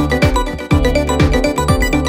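Background music with a steady beat, about two low thumps a second under quick pitched notes.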